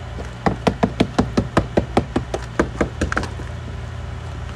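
A hammer rapping quickly on an ice-glazed car door, about fifteen sharp knocks at roughly five a second, breaking the ice that has frozen the door shut. The knocking starts about half a second in and stops a little after three seconds.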